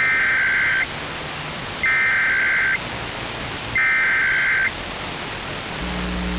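Emergency Alert System SAME header: three short bursts of screeching digital data tones, about a second apart, over steady radio hiss, opening a required monthly test. A steady low buzzing tone starts near the end.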